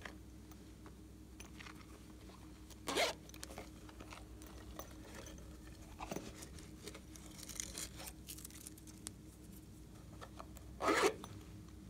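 Zipper of a small bunny-shaped silicone pouch being pulled: two short rasps, about 3 seconds and 11 seconds in, with light handling rustles and clicks between.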